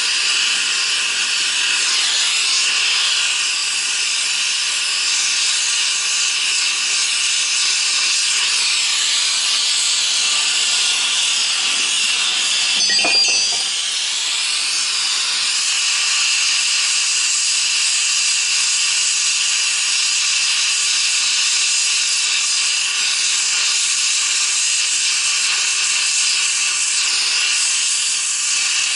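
Oxy-acetylene gas-welding torch flame hissing steadily while the wrench is heated. A brief metallic clatter comes about halfway through.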